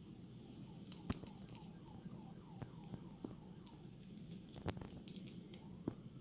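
Padlock and small metal tools being handled for disassembly: faint scattered clicks and taps, with a quick run of short squeaks in the first half.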